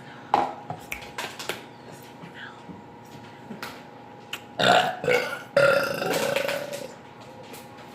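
People burping deliberately in a burping contest: a short burp near the start, then a loud burp about four and a half seconds in and a long, drawn-out burp about a second later.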